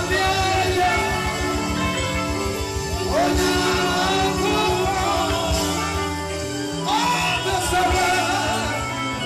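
A woman singing a gospel song into a microphone through the PA, over band backing with bass and a steady beat. Her voice swoops up into held, ornamented notes twice, about three and seven seconds in.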